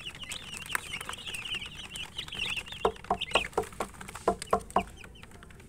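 A crowd of baby chicks peeping in quick, high chirps. About halfway through, a run of about eight lower clucks comes in, evenly spaced, and the peeping thins out.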